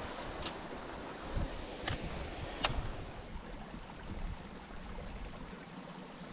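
Steady, even rushing noise of outdoor ambience, with three short sharp clicks in the first three seconds, the last the loudest.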